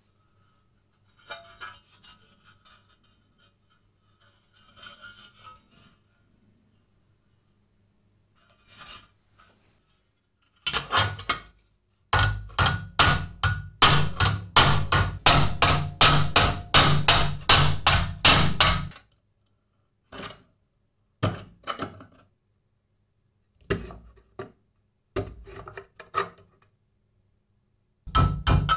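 Hammer blows on steel over an anvil, bending a small steel bracket tab over the anvil horn. Faint scraping and handling of the metal part come first, then a fast run of sharp strikes, about three or four a second for some seven seconds, then a few single strikes, and fast blows again near the end.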